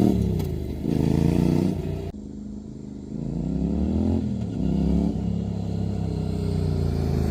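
Honda CTX700N parallel-twin engine revving through a KO Lightning muffler with its baffle in. The revs fall off, blip up again, and drop low about two seconds in. Two more blips follow, then the revs ease back down.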